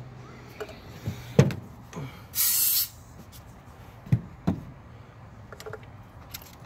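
Pressure in an engine compression tester bled off in a short hiss of about half a second, after a 130 psi reading on cylinder 6, with knocks and clicks of the tester hose and fittings being handled in the engine bay around it.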